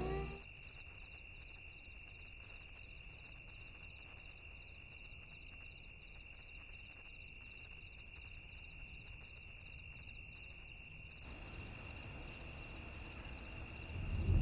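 Faint insect chirring, like crickets, over a steady high tone. The repeating chirps stop about eleven seconds in.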